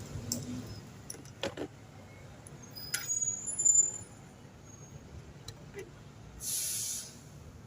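Scattered clicks and knocks of small parts and tools being handled during repair work on a water heater, with a short hiss about six and a half seconds in.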